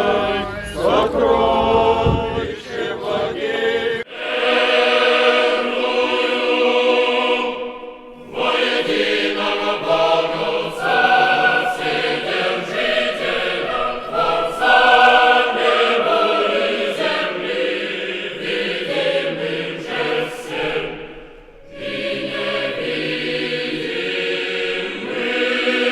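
Orthodox church choir singing liturgical chant in long held phrases, with short breaks between phrases about four, eight and twenty-one seconds in. A low rumble lies under the singing for the first few seconds.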